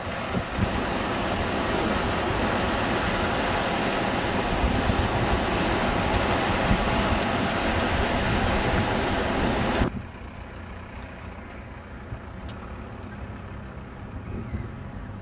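Loud, steady wind noise on the microphone mixed with the wash of surf from a storm high tide. About ten seconds in it cuts off abruptly to a quieter low rumble.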